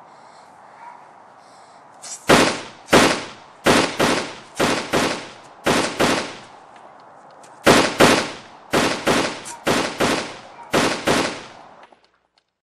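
Staged gunfire: an irregular volley of about seventeen sharp shots over roughly nine seconds, starting about two seconds in, each bang with a short echoing tail.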